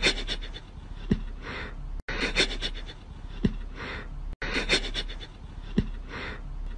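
A cat sniffing at a person's socked foot: a soft click followed by a short breathy sniff, in a pattern that comes three times, about every two and a half seconds, with brief cutouts between.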